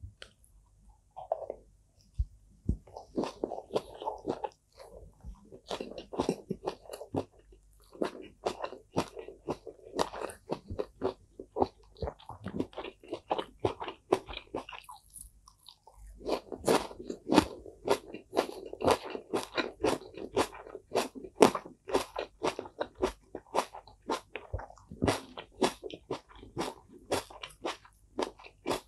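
Close-miked chewing of mouthfuls of fried rice and raw salad: wet mouth sounds with rapid crisp crunching clicks. About halfway through there is a short pause, then denser crunching.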